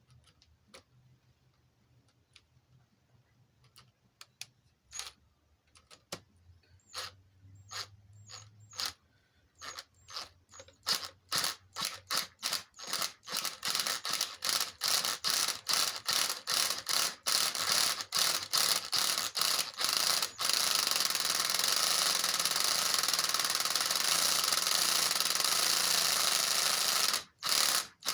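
Ratchet clicking while a tap cuts new threads into the drilled-out head stud hole of a Harley-Davidson Evo cylinder head. The clicks start sparse, come faster and faster, and about two-thirds of the way through merge into a steady rapid rasp that breaks off briefly near the end.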